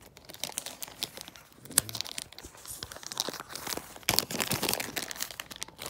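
Clear plastic zip bag crinkling and rustling as it is handled and pulled open, with sharp snaps about two seconds in and again about four seconds in.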